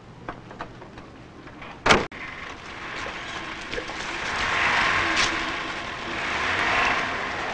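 A car door slams shut about two seconds in, then the car pulls away: engine and road noise that swells, eases and swells again.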